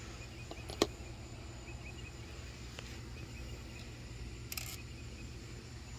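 Quiet workshop background: a steady low hum with faint cricket chirps, broken by a sharp click a little under a second in, a fainter click near three seconds and a short scrape about four and a half seconds in, as motorcycle cover bolts are handled and set down.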